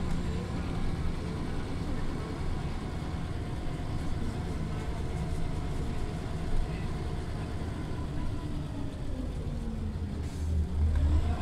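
Scania OmniLink articulated city bus heard from inside while under way: steady engine and road rumble, with a drivetrain whine that falls in pitch over the second half. In the last second or so the engine grows louder as the pitch rises again.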